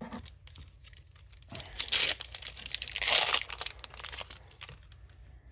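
Pokémon trading card booster pack wrapper being torn open and crinkled, with two louder rips about two and three seconds in.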